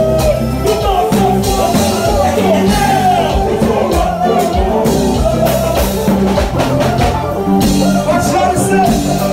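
Loud live band music with a singing voice, drums and guitar.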